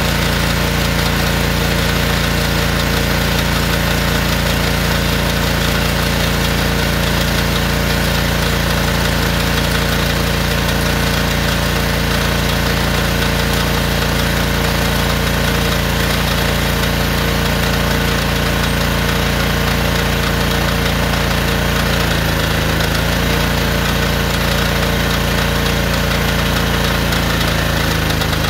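Gas pressure washer engine, a Honda motor on a DeWalt pressure washer rebuilt as a drain jetter, running steadily while it drives water through the jetter hose, with a brief waver in its note about three quarters of the way in.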